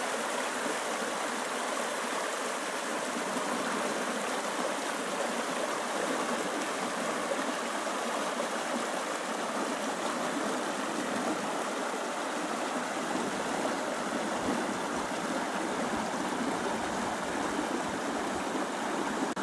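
Small rocky mountain stream rushing steadily over stones and little cascades.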